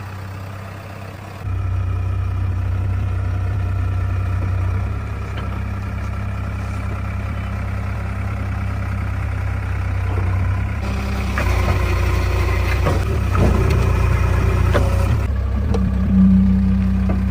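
Heavy diesel engine running steadily, its low hum stepping up louder about a second and a half in, with a run of clanks and knocks about two thirds of the way through.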